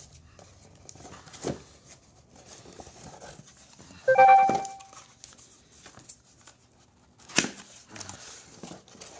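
Cardboard boxes being handled: an inner cardboard box is pulled out of its shipping box, giving a short, loud squeak of cardboard rubbing on cardboard about four seconds in. There is a light knock before it and a sharp tap near the end.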